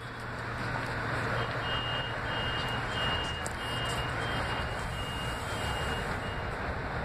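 M8 railcar door warning: high electronic beeps repeating about twice a second for around five seconds, starting about a second and a half in, the signal that the doors are about to close. Under them is the steady hum of the standing train and platform.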